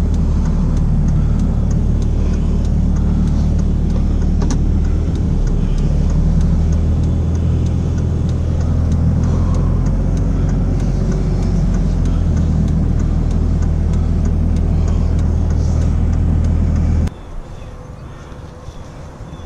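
Truck engine running with a steady low hum. It cuts off suddenly near the end, leaving quieter background noise.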